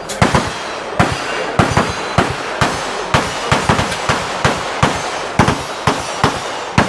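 Gunfire on a firing range: a rapid, irregular string of sharp shots, about three a second, several guns overlapping, with a noisy rumble between the shots.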